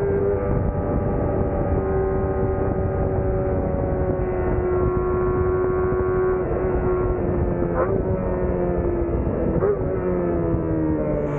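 Kawasaki ZX-25R's 250 cc inline-four engine running at high revs in fifth gear, heard from on the bike with wind rushing past. Its pitch sags slowly, then the revs fall off more steeply near the end.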